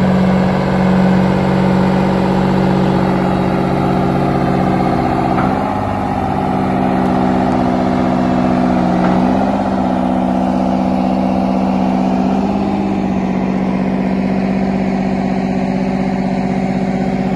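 The Earthquake four-wheel-drive tractor's big diesel engine running steadily as it moves, its note shifting about five seconds in, again around nine seconds, and around thirteen seconds.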